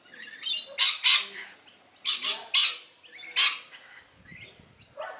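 Rainbow lorikeets screeching: about six short, harsh, loud calls in the first three and a half seconds, some in quick pairs, then quieter.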